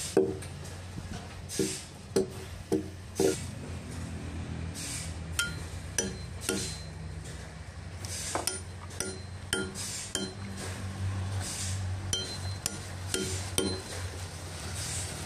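Steel tool struck again and again with the back of a hatchet head: irregular, sharp metallic clinks, each with a short ring, as it is driven into the face of a sawn log.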